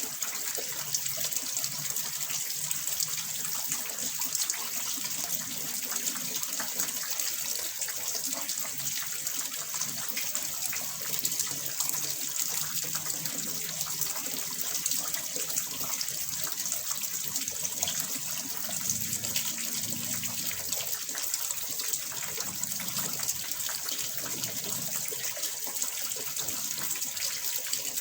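Running water splashing steadily in a small fish pond, an even rushing trickle that never lets up.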